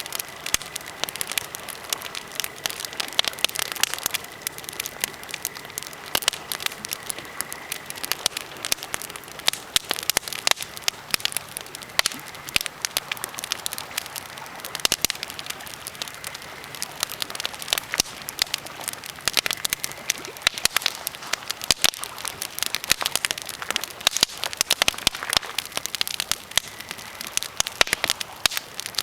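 Birch and pine campfire crackling, a dense, irregular stream of sharp snaps and pops.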